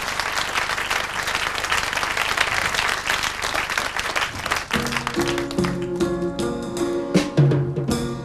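Studio audience applauding. About five seconds in, a song starts: piano chords with drum and cymbal taps.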